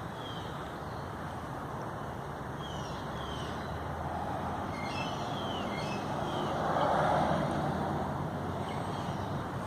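A vehicle passing on a nearby road, growing louder to a peak about seven seconds in and then fading, over steady outdoor background noise. A few faint short high chirps sound in the middle.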